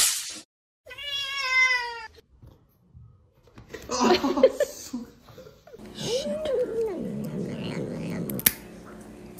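A cat gives one long, slightly wavering meow about a second in. Later comes a short stretch of shouting, then a cat making rising-and-falling calls, heard as 'yummy, yummy', while licking a squeeze-tube treat.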